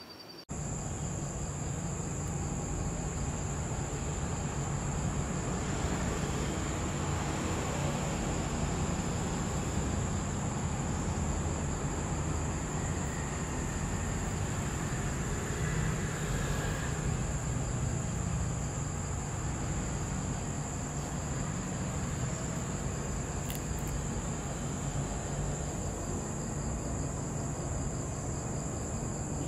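Night-time outdoor ambience: insects trilling steadily at a high pitch over a low, even rumble. It starts abruptly about half a second in.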